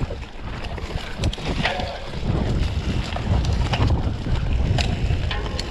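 Wind buffeting the microphone as a mountain bike rolls fast down a dirt forest trail, a steady low rumble, with scattered sharp clicks and rattles from the bike jolting over rough ground.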